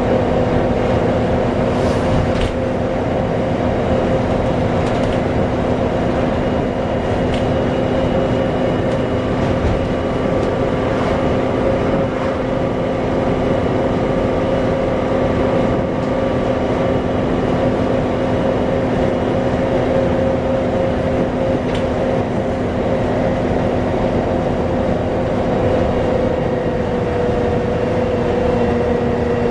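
Volvo B7TL double-decker bus running along, heard on board: a steady engine and road rumble under a loud, steady hoover-like whine that dips slightly in pitch near the end.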